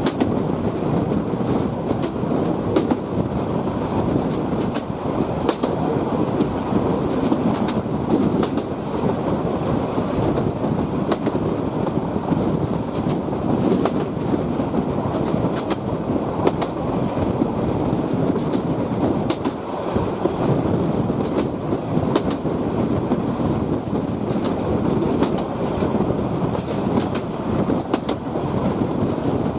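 Moving train running on the rails: a steady rumble with frequent sharp clicks and clacks of the wheels over the track.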